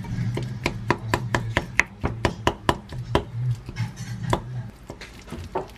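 Wooden spoon mashing steamed kabocha squash in a glass bowl: a quick run of sharp taps, about four or five a second, thinning out to a few scattered taps in the second half.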